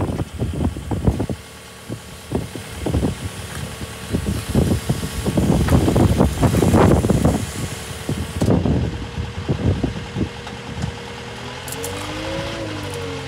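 Caterpillar 908M wheel loader's four-cylinder diesel engine running at idle, with irregular loud knocks and buffets over it for the first several seconds. Near the end a tone bends up and then down.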